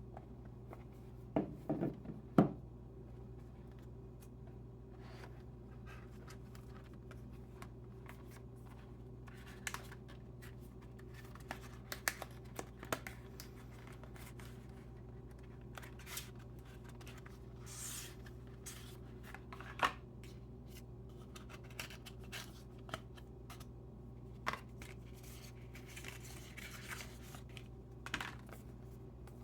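Hands unboxing a smartphone: scattered taps, clicks and scrapes of cardboard and plastic packaging, with a few brief rustles, over a steady low hum. The loudest knocks come in a quick cluster a couple of seconds in, and there is another single sharp one about two-thirds of the way through.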